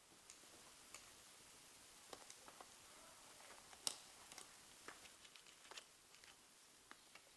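Faint handling sounds of a small cardboard box being opened: scattered light clicks and rustles, with one sharper click about four seconds in.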